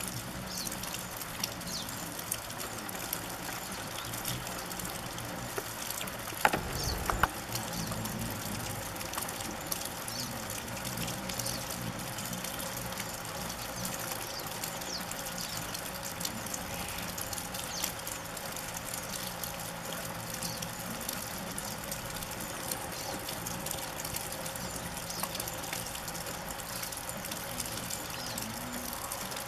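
A crowd of rufous hummingbirds at a nectar feeder: a steady buzz of wings with many small chipping ticks. A brief knock about seven seconds in.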